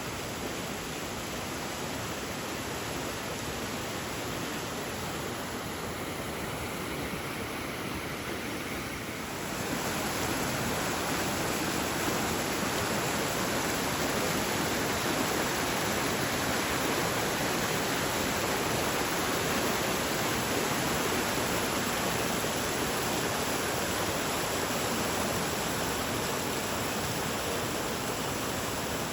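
Creek in full flood after heavy rain, its water rushing steadily. It gets a little louder and brighter about a third of the way in.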